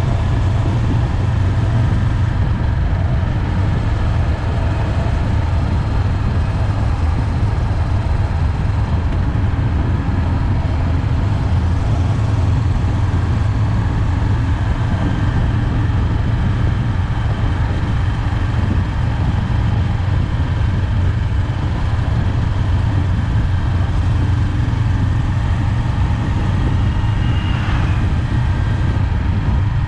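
Honda 400X's parallel-twin engine running steadily while riding, with a loud, constant low hum and road and wind noise.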